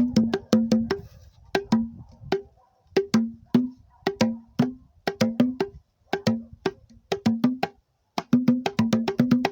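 Hand drumming on homemade wooden cajón-style box drums played like congas or batá, with dry wooden slaps. The strikes alternate between a low tone and a higher tone in quick rhythmic phrases broken by brief pauses.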